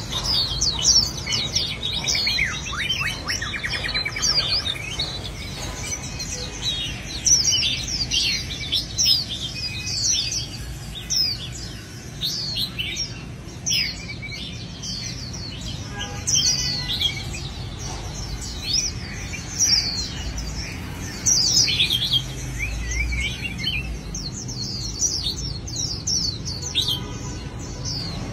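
Songbirds singing and chirping without a break: quick sweeping notes, several birds overlapping, with a faint low rumble underneath.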